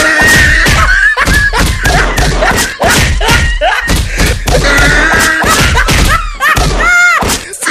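A rapid series of loud thumps, about three a second, with a person's voice crying out over them; a short wavering cry near the end.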